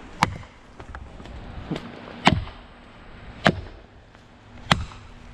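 Felling wedge being driven into the back cut of a tree with repeated hard blows, to tip the trunk over: four sharp strikes, the last three about a second apart, with a lighter knock between the first two.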